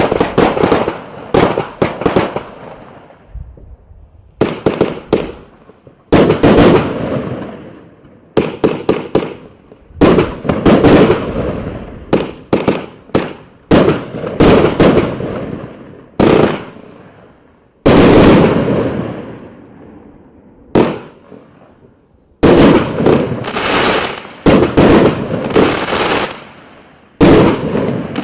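Riakeo Night Stalker 199-shot firework compound cake, with 20, 25 and 30 mm tubes, firing continuously. It goes off in rapid volleys of sharp reports, each volley trailing off over a second or two before the next, with a couple of brief lulls.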